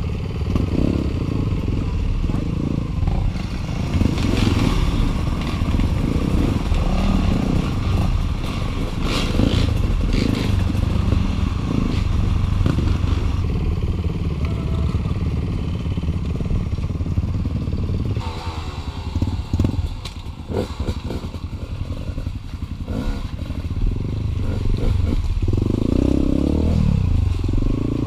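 Enduro dirt bike engine running and revving while being ridden over a trail, with clattering knocks from the bike over rough ground. The engine eases off about two-thirds of the way through, where the knocks are plainest, then picks up again.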